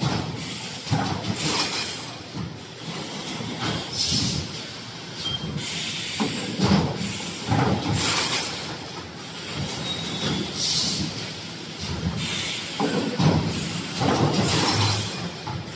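EPS 3D panel production machine running, with repeated metallic clanks and short hissing bursts every one to three seconds over a steady mechanical din.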